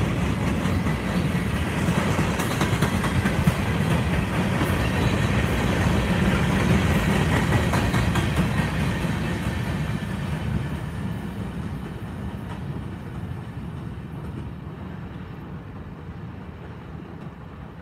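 Freight train of covered hoppers and boxcars rolling past, its wheels clattering over the rail joints. The sound fades away over the second half as the end of the train passes and recedes.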